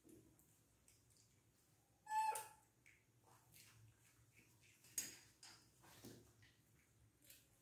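Baby macaques moving about a tiled room: mostly quiet, with faint scuffs and ticks, a brief squeak about two seconds in and a sharp knock about five seconds in.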